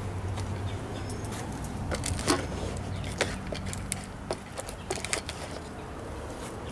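Handling noise from work on an outdoor air-conditioning unit: several scattered sharp clicks and knocks over a low steady hum.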